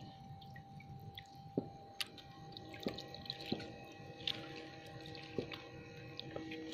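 Shallow water splashing and dripping as poles and a mesh scoop work a flooded field. Sharp clicks or knocks come about once a second over a faint steady whine.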